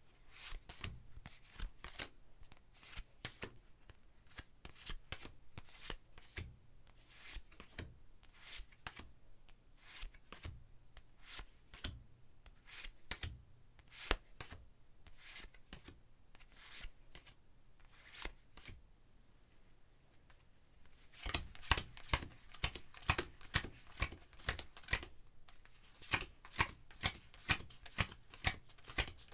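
Playing cards being passed and dealt, a long irregular run of short, sharp card snaps and flicks. About two-thirds of the way in they become louder and come faster.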